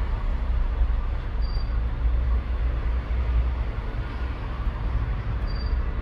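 Steady low rumble with a light hiss, with two faint short high-pitched tones about four seconds apart.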